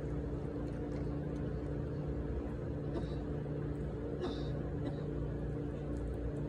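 Cat chewing dry kibble, faint scattered crunching clicks, over a steady low mechanical hum.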